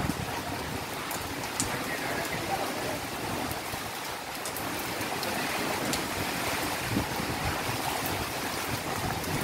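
Heavy rain and strong wind from Hurricane Iota make a steady rushing noise, broken by a few sharp ticks.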